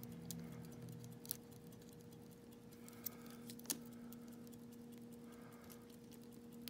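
A lock pick, a Sparrows short hook, probing and lifting pins inside a pin-tumbler lock cylinder: faint scratchy ticks, with a few sharper clicks about a second, three seconds and nearly four seconds in. A steady low hum runs underneath.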